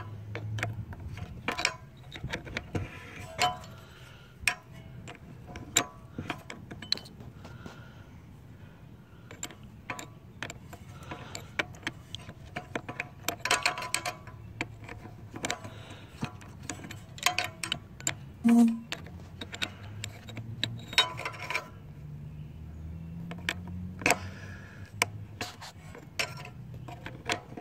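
Wrench clicking and clinking against the brass fuel shutoff solenoid on a Briggs & Stratton carburetor bowl as the solenoid is worked loose. The sound is many sharp metal clicks and taps in irregular runs.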